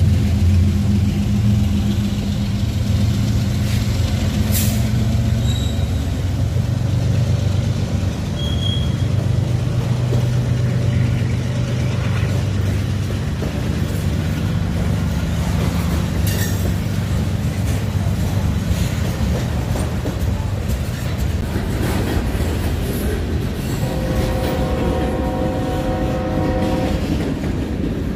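Freight trains passing: a GE ET44AC diesel locomotive runs by with its engine drone, then freight cars roll past with wheel clatter and brief wheel squeals. Near the end a train horn sounds for about three seconds.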